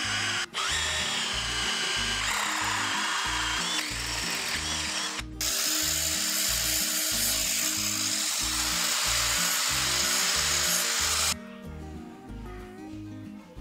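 Cordless drill boring a hole through steel flat bar, the bit whining with a wavering pitch. After a break about five seconds in, a grinder grinds steadily for about six seconds and then stops, leaving background music with a steady beat.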